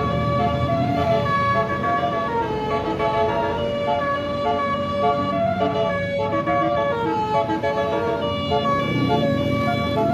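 Multi-tone telolet air horn (Basuri) on a DAMRI bus playing a tune of held notes that step from one pitch to the next, over a low rumble.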